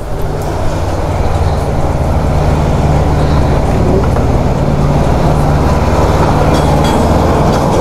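A vehicle engine running steadily close by: a loud, even low hum. A few light clicks come near the end.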